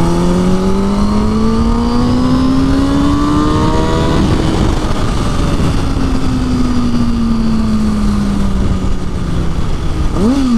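Sport motorcycle engine pulling hard through a gear, its note climbing steadily for about four seconds. Wind rush then covers it, and the engine note falls away as the bike slows, with a short rise-and-fall of pitch near the end.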